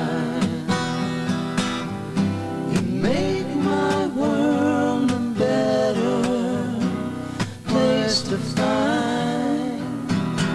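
Live acoustic band music: strummed acoustic guitar with a male voice singing a slow melody over it.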